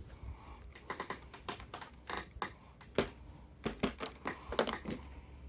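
A run of irregular light clicks and taps from putting away a multimeter and its mini grabber clips.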